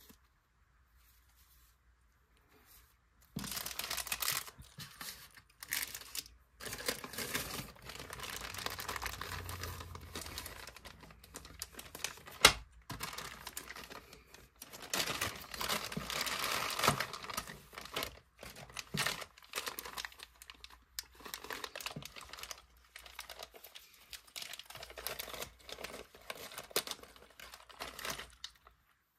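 Thin plastic packaging crinkling and rustling as it is handled and opened, starting about three seconds in and going on in irregular spurts, with one sharp click a little before halfway.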